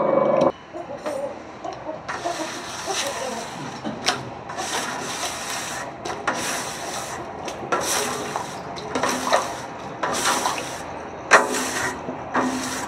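A hand scraper drawn again and again along the paint-coated inside wall of a steel paint-mixing tank, about one rasping stroke a second.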